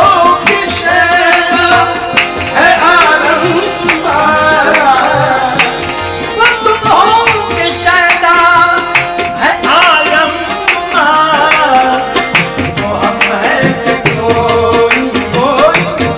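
Qawwali music with tabla drumming under a sung, ornamented melody.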